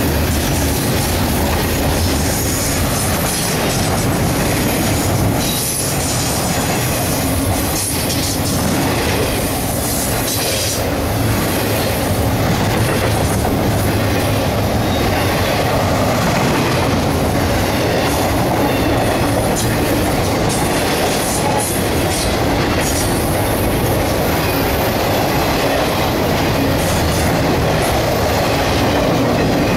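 Double-stack intermodal freight cars rolling past at close range: a steady rumble of steel wheels on rail, with scattered clicks and clanks.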